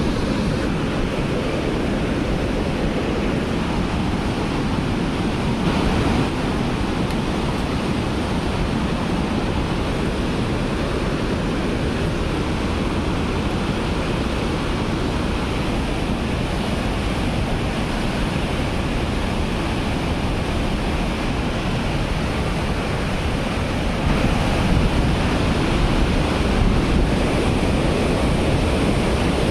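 Steady roar of a fast-flowing river: an even rushing noise with no breaks, a little louder for the last few seconds.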